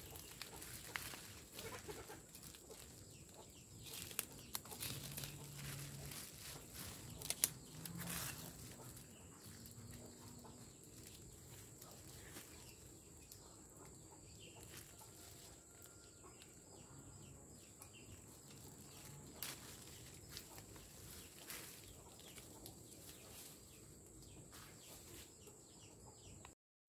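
Chickens clucking quietly, with a few short low calls. Sharp crackles and rustles of a plastic fruit bag and leaves come as a guava is handled on the tree, loudest around four and seven to eight seconds in.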